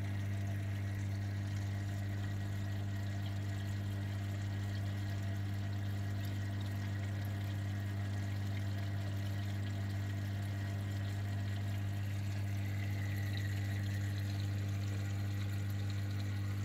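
Reef aquarium pumps running with a steady low hum, over a constant wash of circulating water.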